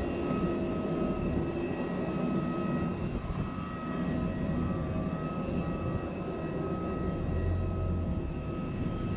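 Steady jet airliner noise: a constant drone with several high, unchanging whining tones over it, from an Airbus A320 standing with its systems running.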